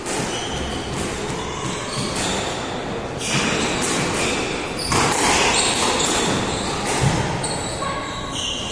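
Squash rally: the ball cracks off the rackets and the walls in sharp, irregular hits, with short high squeaks from court shoes on the wooden floor.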